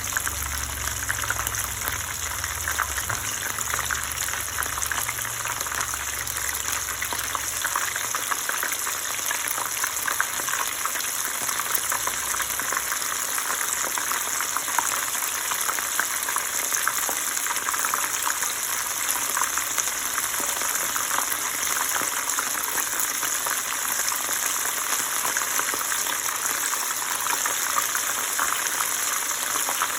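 Flour-and-cornstarch-coated chicken and shrimp frying in hot vegetable oil: a steady, dense crackling sizzle.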